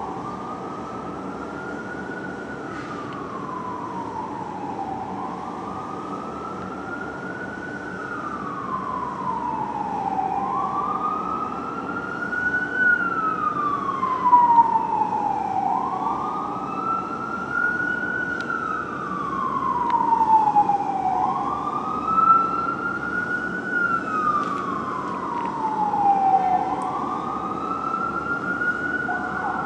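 Fire-truck Whelen electronic sirens sounding the slow wail. The main tone rises and falls about every five seconds and grows louder as the trucks approach. A fainter, higher-pitched second siren wails out of step with it from about ten seconds in, over city traffic noise.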